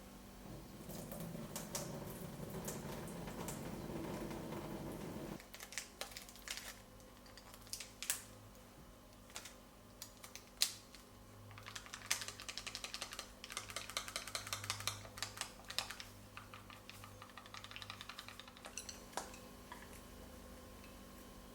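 Kitchen prep sounds: a few seconds of steady noise that stops abruptly, then scattered clinks and a long run of quick, light taps of utensils against a dish.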